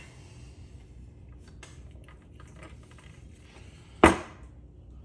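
Taking apart a ceiling fan: a few faint clicks of handling, then one sharp knock about four seconds in as something strikes the fan's housing.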